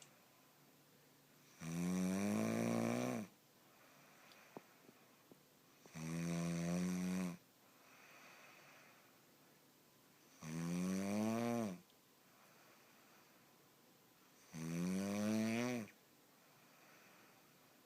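A person snoring in their sleep: four long, rasping, pitched snores about four seconds apart, with quiet breathing between them.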